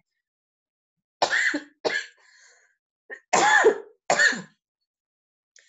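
A person coughing in two short bouts of two coughs each, the second bout about two seconds after the first.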